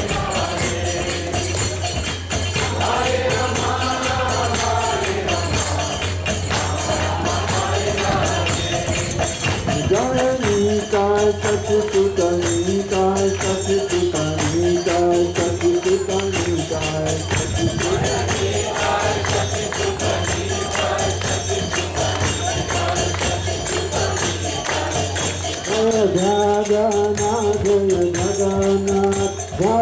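Devotional group chanting (kirtan) over jingling percussion that keeps a steady beat throughout; the sung phrases come in about two seconds in, again about ten seconds in, and near the end.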